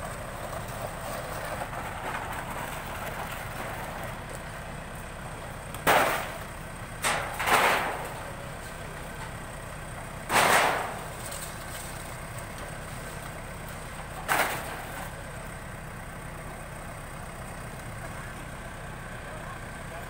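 Backhoe loader's diesel engine running steadily, with five loud, sudden noises breaking in between about six and fifteen seconds in.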